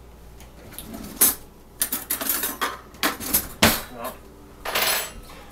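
Cutlery clinking and scraping against a plate and the cheesecake dish as a slice of cheesecake is cut and served: a sharp clink about a second in, then a run of short scrapes and knocks, and one longer scrape near the end.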